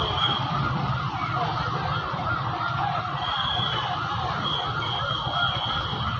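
An emergency-vehicle siren wavering rapidly up and down, over the low rumble of street traffic with motorbikes and a van passing.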